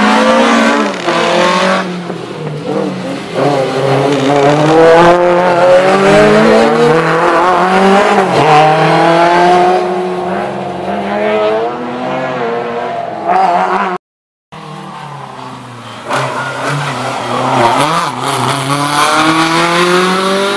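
Historic rally car engines revving hard under acceleration, the pitch climbing through each gear and dropping back at every change. A short break to silence a little past two-thirds through, then another car accelerating the same way.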